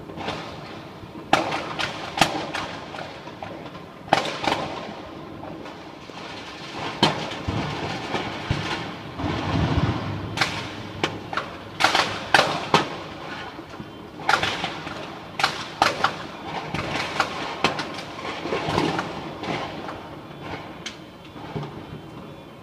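Firecrackers and fireworks going off, many sharp bangs at irregular intervals over a steady background din of more distant blasts.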